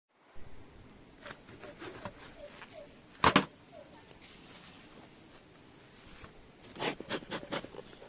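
Gloved hands handling a stainless bee smoker and a packet on a galvanised metal hive lid: a sharp double knock about three seconds in, then a quick run of metallic clicks and clatter near the end.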